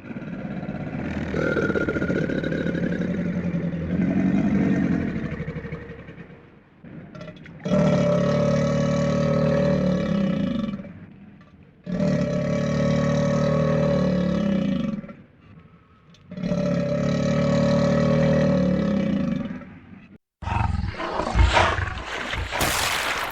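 Crocodile growling: a long, deep, rasping growl, then three more growls of about three seconds each with short pauses between. About twenty seconds in it cuts to a crocodile in water, a rougher, noisier sound with sharp sudden strokes.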